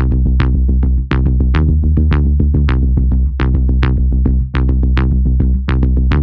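Electronic dance music with a steady drum-machine beat and heavy bass.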